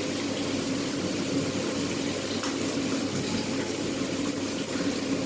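Steady sizzling of a freshly cracked egg frying in hot oil in a pan, with a few faint clicks.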